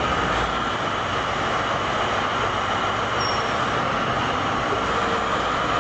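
LeTourneau L-2350 diesel-electric wheel loader running: a steady, loud machinery drone with a constant high whine over it.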